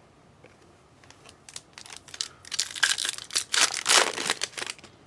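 A foil trading-card pack wrapper being torn open and crinkled by hand: quiet at first, then a quick run of crackly rustles, loudest past the middle.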